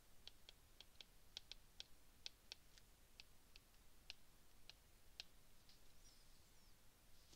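Faint, irregular clicks of a stylus tip tapping on an iPad's glass screen while writing by hand, about three a second, stopping near the end.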